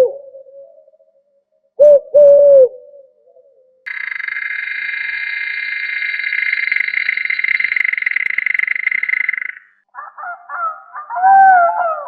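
Night bird calls: two short, low hoots, then a long, rapid trill lasting about six seconds, then wavering honking calls near the end.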